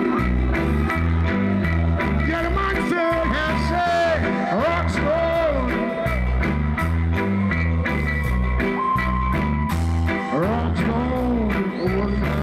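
Live reggae band playing, with a heavy repeating bass line and a steady drum beat, and a male singer on microphone whose voice slides up and down over the band.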